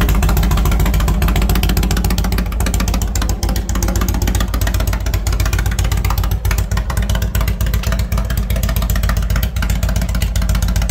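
Touring motorcycle's engine running through new 33-inch Sharkroad fishtail mufflers, loud and steady with an even, rapid firing beat.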